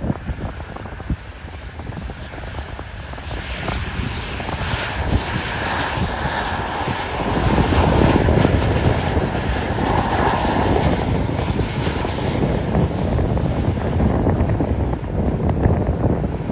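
Airliner jet engines growing louder from about three seconds in, loudest around eight to twelve seconds in with a whine near the peak, then staying loud. Wind rumbles on the microphone.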